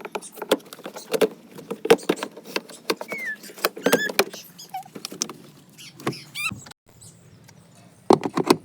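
Irregular clicks, taps and knocks of parts and tools being handled during washing machine repair work, with a few short squeaks in the middle and a quick run of clicks near the end.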